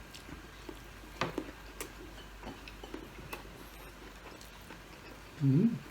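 A person eating: soft, scattered mouth and chewing clicks. Near the end comes a short hummed "mm" that rises in pitch.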